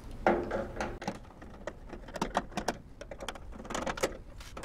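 Hand screwdriver working screws out of a toaster oven's sheet-metal casing: scattered small clicks and taps of the tool against the screws and metal, with one louder knock just after the start.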